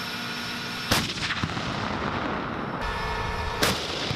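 Two main-gun shots from an M1 Abrams tank's 120 mm smoothbore, about two and a half seconds apart. Each is a sharp blast with an echoing tail.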